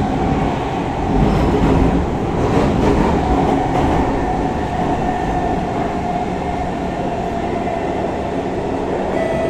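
Kawasaki Heavy Industries C151 metro train running, heard from inside the carriage: a steady rumble of wheels and running gear with a strong traction motor whine, joined by a few higher whining tones near the end.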